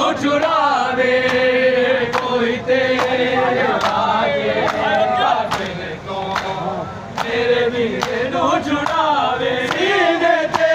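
A group of men chanting a Punjabi noha in chorus, over a steady beat of open-hand chest-beating (matam) slaps landing about every three-quarters of a second.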